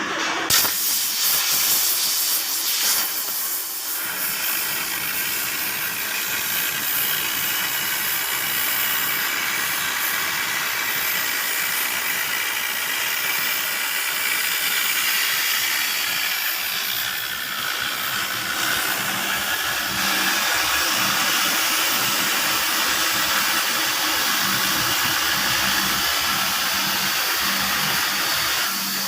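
CNC cutting torch blowing a steady, loud hiss as it cuts through 25 mm steel plate. It grows a little louder about two-thirds of the way through, and a low hum joins in.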